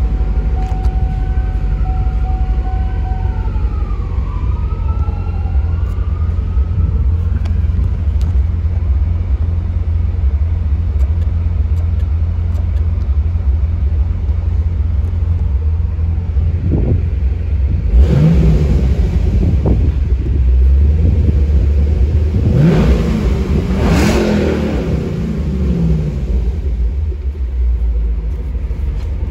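2013 Camaro's 6.2 L LS3 V8 idling steadily, then revved twice in the second half, the second rev higher, each rising and falling back to idle.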